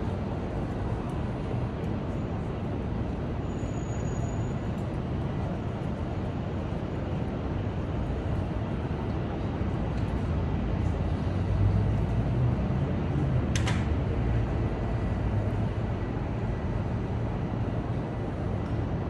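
City street traffic: a steady hum and rumble of passing vehicles that swells briefly a little past halfway, with a single sharp clack soon after.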